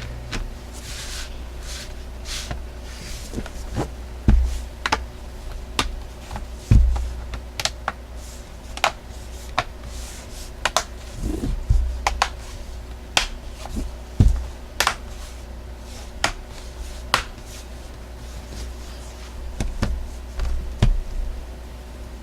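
Irregular sharp clicks and taps, with a few dull knocks, from hands handling a Chromebook and its small parts as it is reassembled.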